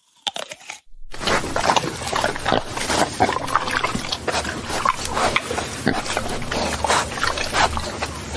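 A cartoon character crying loudly, a continuous blubbering sob that starts about a second in.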